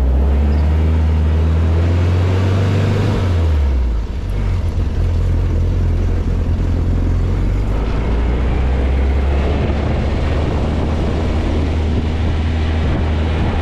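Rail buggy's engine running as the buggy drives, its low note sliding down with a brief dip in level about four seconds in, then holding steady.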